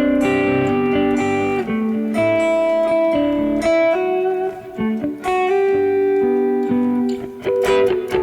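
Electric guitar, a Telecaster, picking a flowing run of single notes and chords through a Strymon BigSky MX reverb pedal set to a plate reverb. Each note rings on and overlaps the next.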